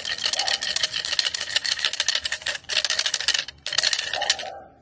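Clatter stick shaken hard, a fast rattling clack of its loose slats in three bursts with short breaks, the last stopping about four and a half seconds in. It is a noise used in protection training to startle and work up the dog.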